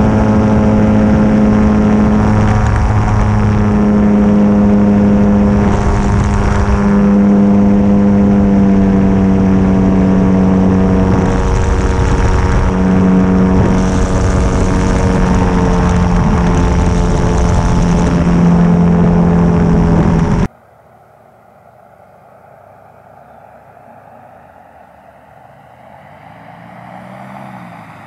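Yamaha Phazer snowmobile engine turning a propeller through a reduction gearbox, heard from the cockpit in flight: a loud, steady drone with a strong low hum. About twenty seconds in it cuts off suddenly to the same aircraft heard faintly from the ground, its engine growing louder near the end as the plane comes in low over the field.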